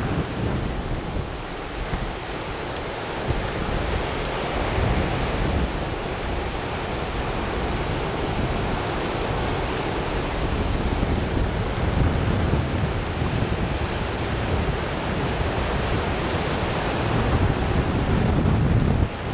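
Wind buffeting the microphone: a steady rushing noise with low, gusting rumbles.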